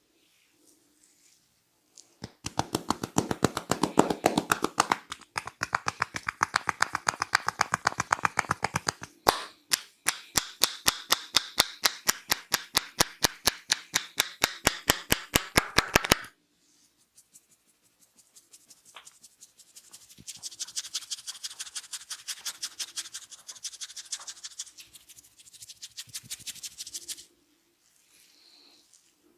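Barber's hands slapping in a percussive head massage, about five or six quick strokes a second, in two long runs. After a pause, a softer, lighter run of strokes follows.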